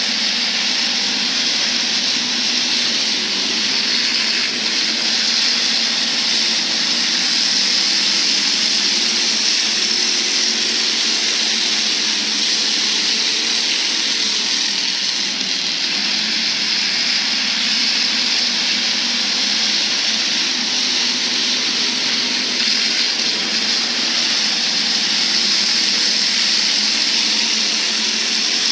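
Hobby stock race cars running laps on a dirt oval: a steady din of several engines, with faint rising and falling engine pitch as the cars go around.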